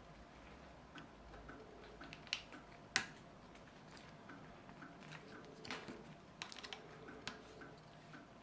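Faint, scattered plastic clicks and taps as a small metal blade pries at the pivot housing of a plastic litter picker's jaws, with a few light ticks and the sharpest click about three seconds in.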